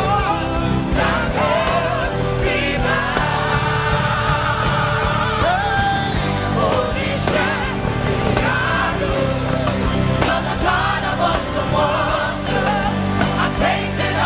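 Gospel praise music: a choir and lead voices singing with vibrato over a band, with a steady bass line and regular drum hits.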